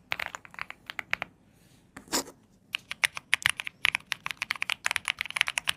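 Typing on an Epomaker Galaxy 100 mechanical keyboard: a quick run of key clicks, a short pause, one louder keystroke at about two seconds, then a fast, dense run of keystrokes.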